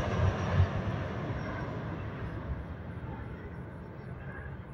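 Jet engine noise of a British Airways Airbus A320 climbing away after takeoff, a steady roar that fades as the aircraft recedes, its higher hiss dying away first.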